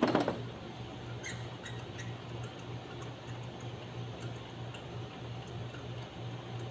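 Faint, scattered metal clicks and taps of hand tools working on the spark plugs and ignition coils of a four-cylinder engine, after a single knock at the start, over a steady low hum.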